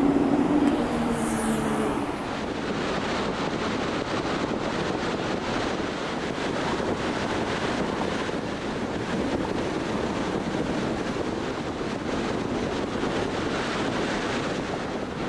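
A car driving: steady road and wind noise from the tyres and moving air. In the first two seconds a low engine hum from nearby traffic sits over it, with a brief high squeal.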